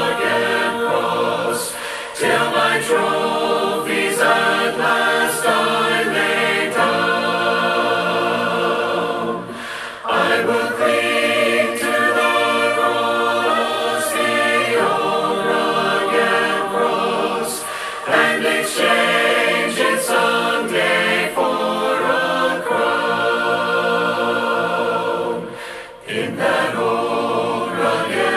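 A cappella choir singing a hymn, the phrases breaking briefly about every eight seconds.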